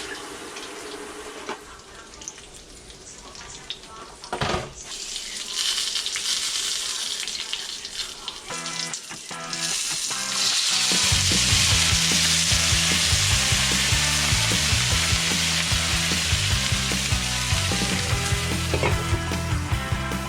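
Dumplings (potstickers) sizzling as they pan-fry in oil. The sizzle swells and grows much louder about halfway through.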